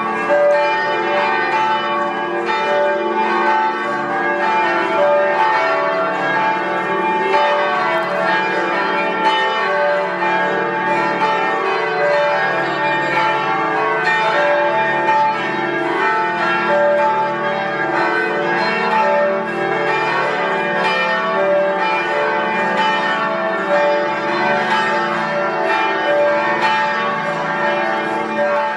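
Several church tower bells ringing together, their strikes overlapping into a dense, continuous peal at a steady level.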